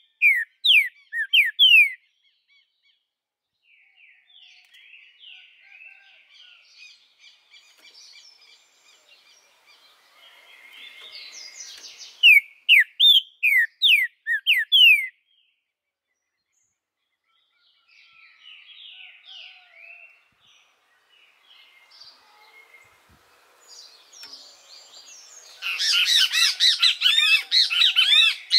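Green-winged saltator (trinca-ferro) singing: loud phrases of quick falling whistled notes with softer twittering between them, turning into a dense, loudest burst of song near the end.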